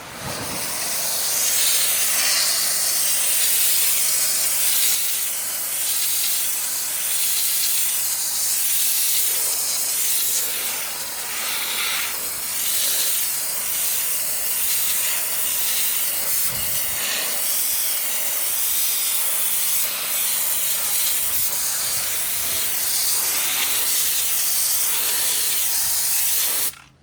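Pressure washer spraying plain water onto garage doors, a steady loud hissing spray as the doors are rinsed.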